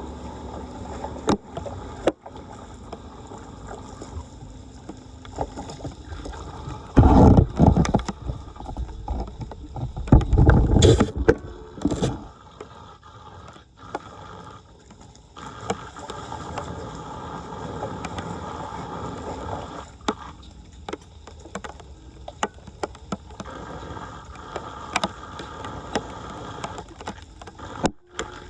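Floodwater splashing and gurgling around a clogged street drain, with small clicks and knocks throughout. Two loud rushing bursts come about seven and ten seconds in.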